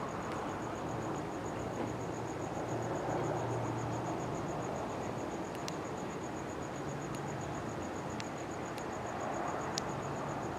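A cricket chirping in a steady, fast run of high-pitched pulses over a soft outdoor background hiss.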